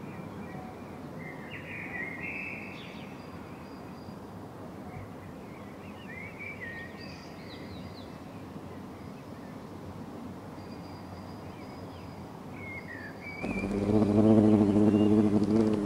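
Birds chirping now and then over a steady outdoor hiss. Near the end a European hornet takes off from the nest hole right at the microphone, and its wings set up a loud, steady, low buzz.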